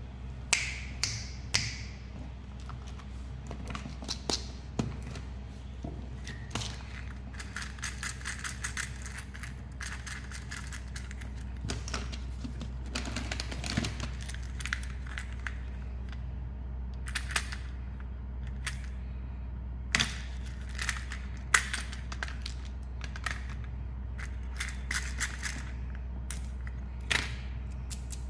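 Candy packaging being handled: plastic wrappers crinkling, with irregular sharp clicks and small rattles, over a steady low hum.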